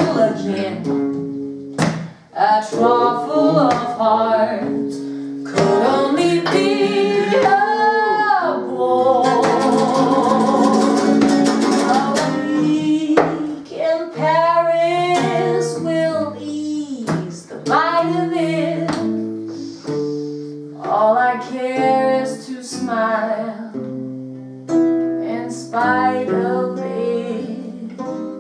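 A steel-string acoustic guitar plays jazz chords under a woman singing a slow jazz ballad melody. The guitar is slightly out of tune, as the players themselves say.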